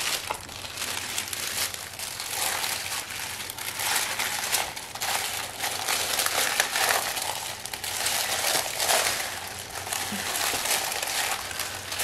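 Clear plastic bag crinkling and crackling in irregular bursts as laser-cut birch wood pieces are slipped inside and the plastic is handled around them.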